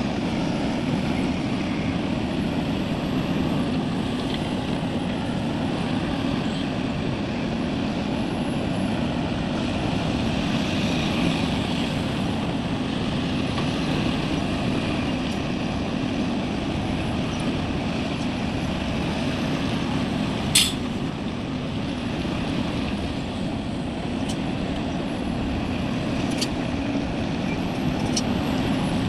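Heavy diesel earthmoving machinery, an excavator and dump trucks, running steadily, with one sharp click about two-thirds of the way through.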